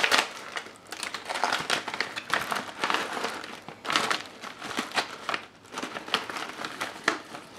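Foil-lined Mountain House freeze-dried meal pouch crinkling as it is handled and pulled open, irregular rustles and crackles rising and falling several times.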